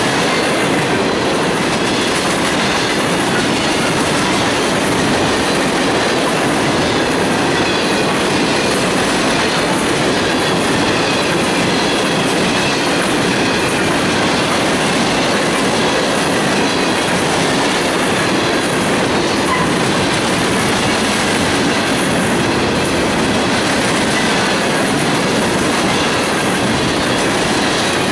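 A long string of steel open hopper freight cars rolling steadily past close by: a continuous rumble and rattle of steel wheels on rail, with clickety-clack and a faint thin squeal of wheels.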